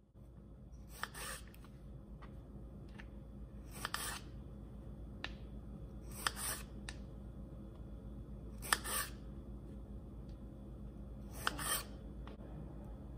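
Kitchen knife cutting cherry tomatoes in half on a wooden cutting board: five short slicing cuts, each ending on the board, about every two and a half seconds, with small clicks of handling in between.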